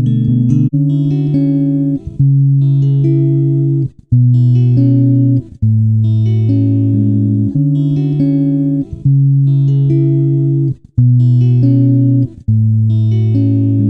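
Background music: plucked guitar-like chords held and changing every second or two, with short breaks between phrases.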